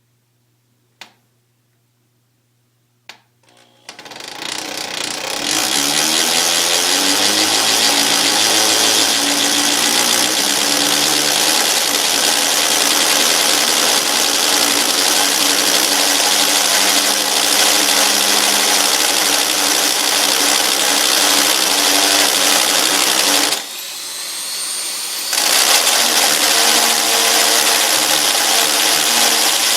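A hammer drill with a masonry bit boring into concrete: a couple of clicks, then the drill spins up about four seconds in and runs steadily. Near the end it eases off for a couple of seconds and then spins back up.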